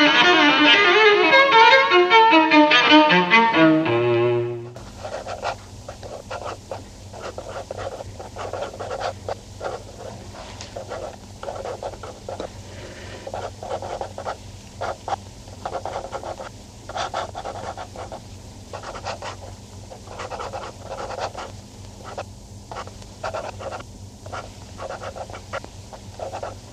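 Bowed-string music led by violin, which cuts off abruptly about five seconds in. After it comes a quieter steady low hum with many irregular short noises over it.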